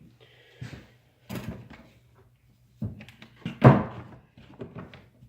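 Irregular knocks and clunks of hard objects being handled and set down, the loudest a little past halfway.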